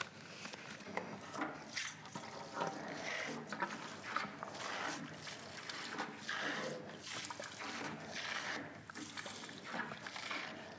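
Hand-operated plunger transfer pump worked in quick repeated strokes, a little faster than one a second, sucking old, stagnant coolant up out of a lathe's coolant sump, with sloshing and gurgling liquid.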